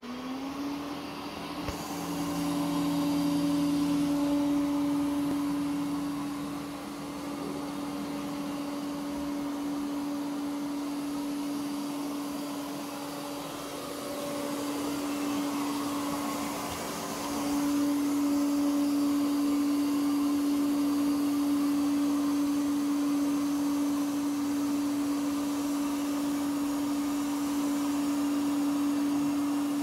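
Ecovacs Deebot OZMO T8+ robot vacuum running: a steady low motor hum over the rush of suction. Its loudness swells and dips as it works over the carpet.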